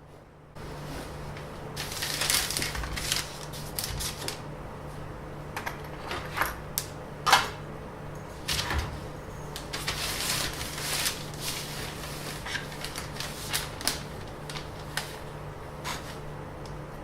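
Irregular clicks, taps and rustles of objects being handled close to the microphone, over a steady low hum that starts about half a second in.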